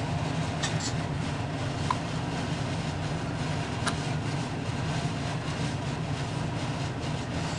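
Steady low rumble of a vehicle running, with a couple of faint brief clicks about two and four seconds in.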